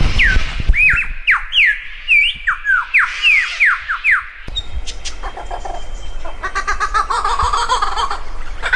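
A bird calling in a quick run of falling whistled notes, about three a second. About four and a half seconds in it cuts off abruptly and is replaced by a harsher, busier bird call with several pitches at once, which grows louder near the end.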